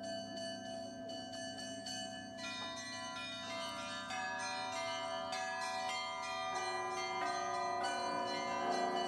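A peal of bells: many overlapping struck tones ringing on, with new strikes coming in quick succession and the sound growing fuller and brighter about two seconds in.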